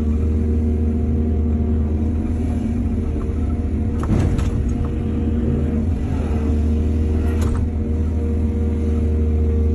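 Excavator's diesel engine running steadily, with two sharp metallic clanks, one about four seconds in and another a few seconds later.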